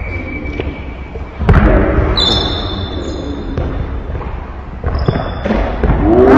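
Basketball bouncing on a hardwood gym floor during play, with sneakers squeaking on the court in two short spells.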